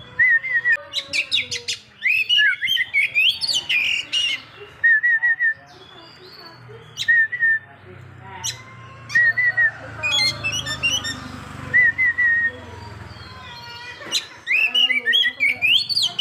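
Oriental magpie-robin (kacer poci) singing: loud bouts of rapid, varied sweeping whistles and chatter, broken by a short high trill that comes back every couple of seconds.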